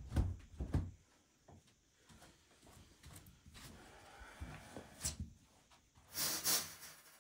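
Handling noise of objects being moved and set down: a few light knocks and thuds in the first second, faint rustling and scraping, a sharp click about five seconds in and a louder rustle around six seconds.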